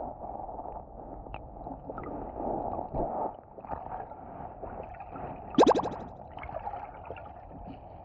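Muffled gurgling and sloshing of creek water heard from a submerged camera. A little past halfway there is a quick burst of rapid clicks.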